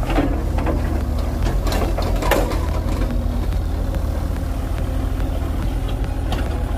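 Two mini excavators' diesel engines running steadily as they dig wet mud, with a few sharp clanks and knocks from the working machines, the loudest about two and a half seconds in.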